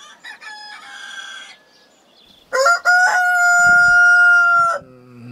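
Rooster crowing twice: a fainter crow near the start, then a loud, long cock-a-doodle-doo from about two and a half seconds in, ending on a long held note.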